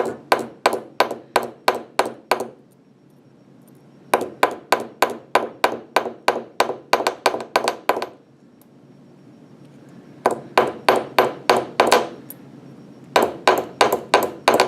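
Hammer tapping the end of a wire rivet on a metal anvil, spreading it into a rivet head: quick, ringing strikes at about four a second, in four runs with short pauses between, the first pause about two and a half seconds in.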